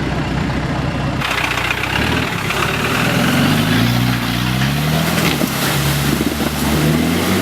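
Off-road 4x4 vehicle engine running and revving, its pitch climbing and dropping several times, with the engine noise growing louder about a second in.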